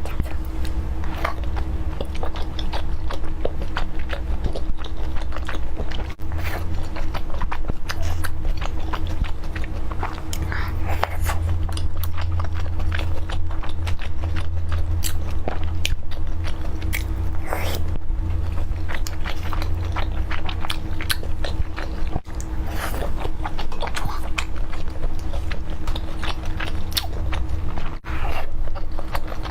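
Close-miked chewing and biting of food, with many small wet smacks and clicks, over a steady low electrical hum.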